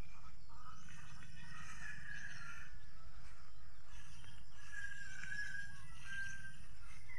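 Steady low rumble of wind on the microphone, with faint high wavering calls now and then.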